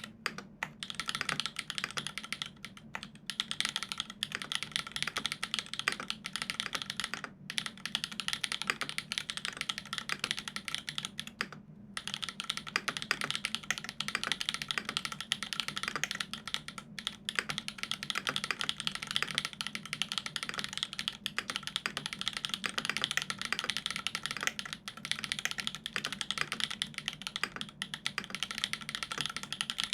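Fast continuous typing on a Dolumina65 mechanical keyboard with lubed Everglide Dark Jade Black linear switches, an aluminium plate and GMK keycaps: a dense stream of keystroke clacks. There is a brief break about twelve seconds in.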